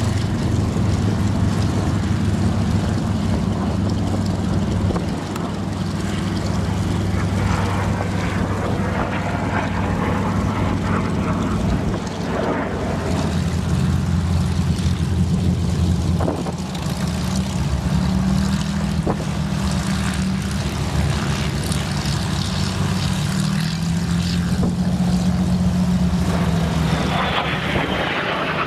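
F-86 Sabre jet fighter's engine heard in flight during an aerobatic display: loud, continuous jet noise with a low drone that shifts slightly in pitch as the aircraft manoeuvres.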